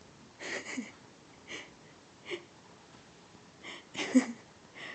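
A dog sneezing and snorting: a string of short breathy bursts, the loudest about four seconds in.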